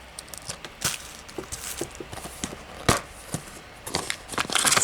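Handling of a plastic 4K Blu-ray case and its packaging: scattered clicks and taps, a sharp snap about three seconds in, and rustling near the end.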